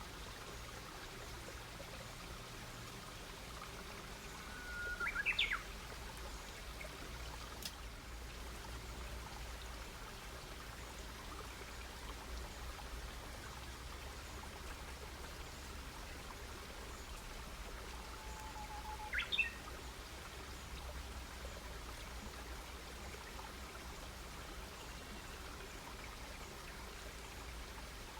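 A wild bird calls twice, about five seconds in and again near nineteen seconds, each a short call that sweeps sharply upward. Underneath is a faint steady hiss from a wood campfire, with one sharp crackle from the fire about eight seconds in.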